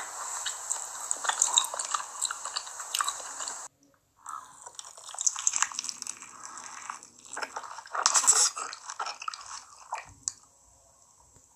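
Close-miked eating: steady chewing, then after a brief cut to silence, bites into and chewing of a fried Korean corn dog coated in potato cubes, with the loudest bite about eight seconds in. The sounds die away to near quiet about ten seconds in.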